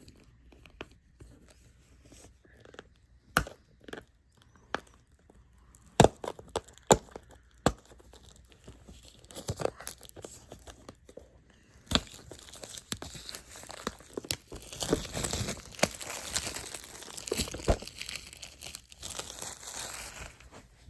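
Packaging handled and opened: a few sharp clicks and snaps, then several seconds of crackly tearing and crinkling as the wrapping is pulled off.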